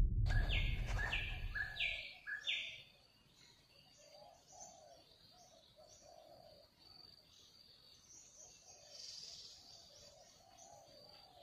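Birds calling: four loud falling whistled notes in the first couple of seconds, then faint repeated high chirps and lower calls. A low sound fades out over the first two seconds.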